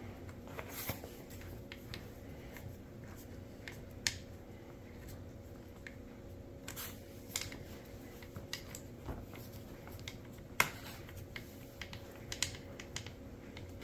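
Faint scattered clicks and light taps of hands handling the metal-and-plastic parts of a Caldwell Stinger shooting rest while a screw is threaded by hand into its cross brace, with a few sharper clicks.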